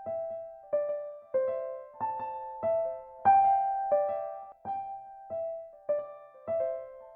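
Casio CTK-2200 keyboard playing a slow melody, one note struck about every two-thirds of a second, each note dying away before the next.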